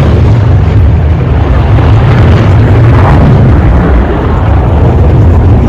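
Military jet roaring low past at an air show, a loud, steady, deep roar that overloads the phone microphone.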